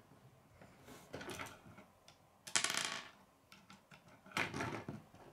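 Plastic K'nex pieces clicking and clattering as they are handled and snapped together on a wooden table, in three short bursts, the loudest about halfway through.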